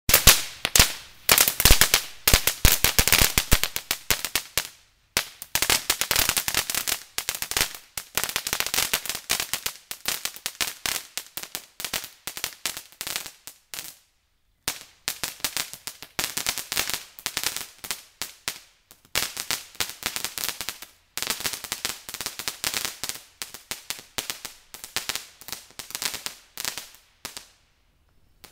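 Crackling whip firework hung beneath a sky lantern, its burning cord firing off dense, rapid crackling pops in long bursts with a few short breaks. The crackle grows somewhat fainter as the lantern climbs away.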